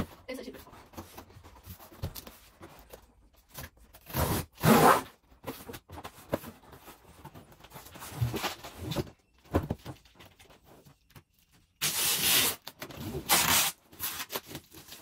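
Cardboard delivery box and its packaging being opened and canvas prints pulled out: a series of short scraping, rustling bursts, loudest about four seconds in and again about twelve seconds in.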